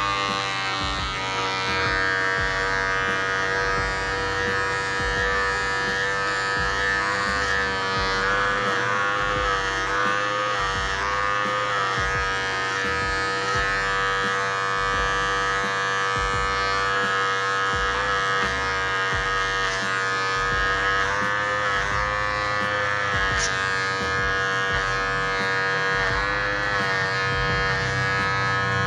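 Electric hair clipper starting up, then running steadily with a buzzing hum while cutting hair over a flat-top comb. Its pitch sags slightly now and then as the blades cut.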